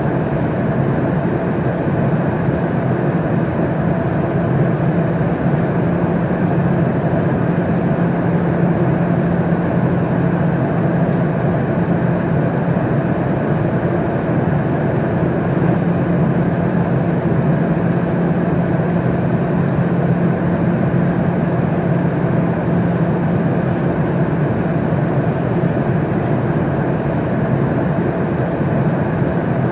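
Airliner cabin noise in flight: a steady low drone with an even hiss over it.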